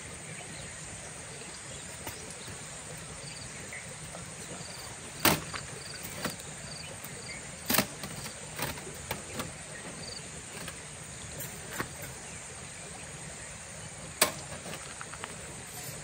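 Steady rush of a forest stream with a handful of sharp knocks and clacks, firewood or stones being set down to build a cooking fire. A few faint high chirps sound now and then.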